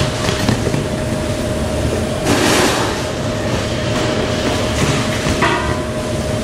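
Multihead weighing line with its belt conveyors running: a steady mechanical din over a constant hum, with a short hissing rush about two seconds in and a brief higher tone near the end.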